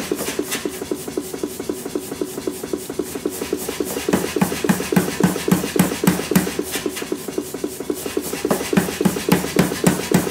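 Power hammer striking a red-hot EN9 steel hammer head held in tongs, in a fast, steady rhythm of several blows a second.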